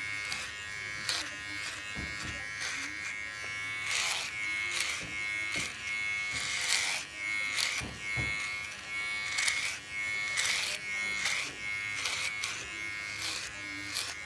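Electric hair clippers buzzing steadily while cutting short hair at the back of the neck. Each stroke through the hair adds a short crackling burst, about once a second.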